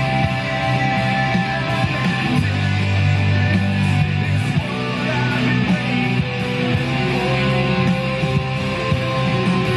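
Rock music with electric guitar and heavy bass playing loud and steady through a JBL PartyBox 100 party speaker with its bass boost switched on.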